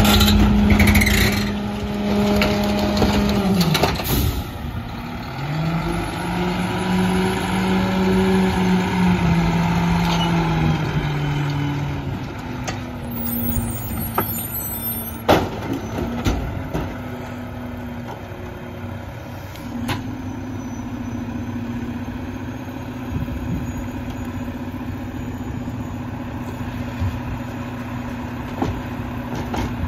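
Heil 5000 rear-loader garbage truck's diesel engine running, its pitch rising and falling for several seconds and then holding a steady hum. Air brakes hiss, and there is a sharp bang about halfway through.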